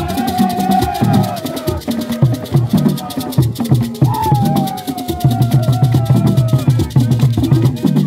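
Borborbor music: seated players beat hand drums in a fast, steady rhythm, with rattles shaking and hands clapping. A voice sings a sliding melody line over it.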